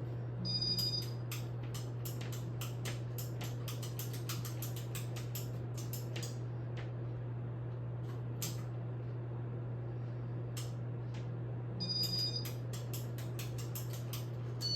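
A ceiling fan's motor humming steadily. Over the hum there is a quick run of light clicks for the first several seconds, then a few scattered clicks. Two short high beeps come, one near the start and one near the end.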